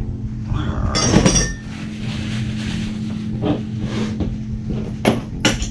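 Metal tools and small parts clinking and knocking on a workbench, with a clattery burst about a second in and a few sharp clicks near the end, over a steady low hum.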